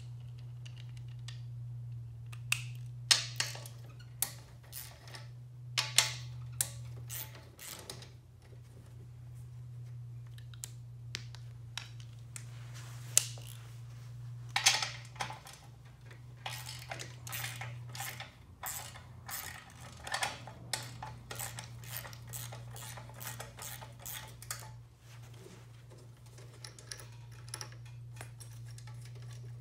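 Metal tools and exhaust hardware clinking and rattling in irregular bursts as a motorcycle muffler's clamps are loosened and the steel muffler is wiggled loose, over a steady low hum.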